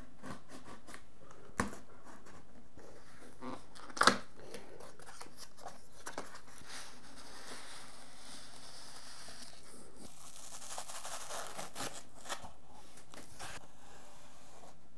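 Unboxing a small cardboard retail box by hand: a blade slitting the seal, a few sharp clicks and taps with the loudest about four seconds in, then a long dry scrape of cardboard as the inner box is slid out of its sleeve, and handling of a fabric pouch near the end.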